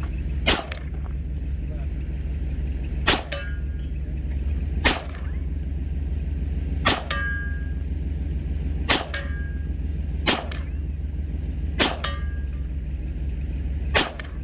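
Eight pistol shots from a Browning Hi-Power, fired one at a time about every one and a half to two seconds. Four of them are followed a moment later by the ring of a steel target being hit.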